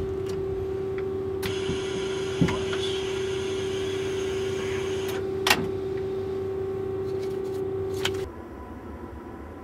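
Steady electrical hum of TGV cab equipment, with a hiss of air for a few seconds and several sharp clicks from the controls. The hum cuts off suddenly just after a click near the end, leaving a lower background rumble.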